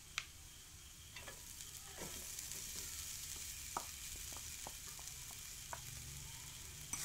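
Onion and spice masala sizzling in a nonstick frying pan, a steady hiss that grows a little louder about two seconds in, with a few light clicks; cooked, ground beef is tipped into the pan from a bowl.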